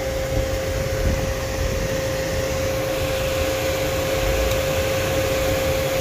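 A circuit tester's ground signal: one steady, unbroken beep tone, over the even rushing noise of the 2000 Toyota Sienna's electric cooling fans running with only the key on, a symptom of the van's bad grounds.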